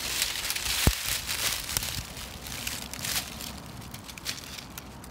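Dry twigs, dead leaves and bramble stems crackling and rustling as a foot steps into the brush and a hand pushes through it, a dense patter of small snaps, busiest in the first two seconds. A short dull thump about a second in.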